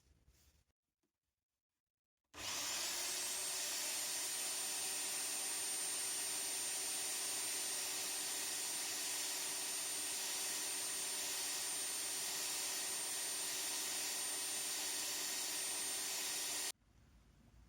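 Electric power tool running at a steady speed with a thin high whine, cutting in about two seconds in and cutting off sharply near the end.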